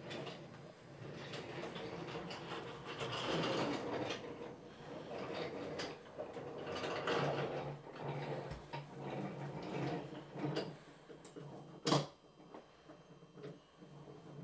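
Toy train running along a toy train table's track, giving a steady low mechanical hum with rattling and clicking, and one sharp click about twelve seconds in.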